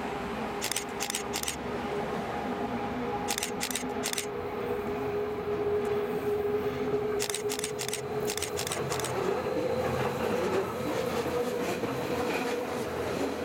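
Rhaetian Railway electric train approaching, its steady electric whine and wheel noise on the rails growing louder as it draws near. Three short runs of sharp, high clicks cut in over it.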